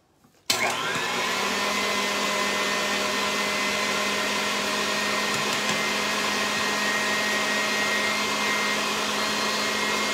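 KitchenAid tilt-head stand mixer switched on about half a second in, then running steadily as it beats egg whites in its stainless steel bowl: an even motor whine over the whir of the beater.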